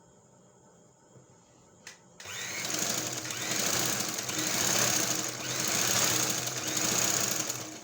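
Sewing machine running, stitching for about five seconds. It starts just after a click about two seconds in, swells and eases a few times, and stops near the end.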